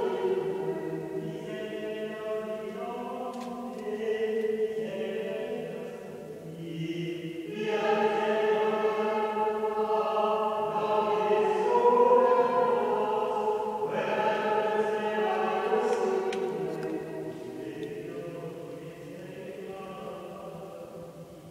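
Voices singing a slow liturgical chant, held notes echoing through a large stone church, growing quieter over the last few seconds.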